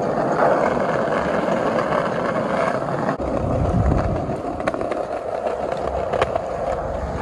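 Skate wheels rolling steadily over pavement, a continuous rumble, with a few sharp clicks in the second half.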